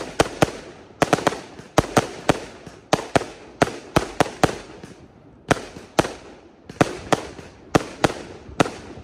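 Fireworks launching shot after shot: sharp bangs about two a second, some in quick pairs and triplets, each with a short echoing tail, with a brief lull a little after halfway.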